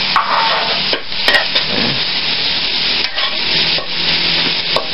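Shredded banana heart and onions sizzling steadily in a wok while a metal spatula stirs them, with a few sharp clicks of the spatula against the pan.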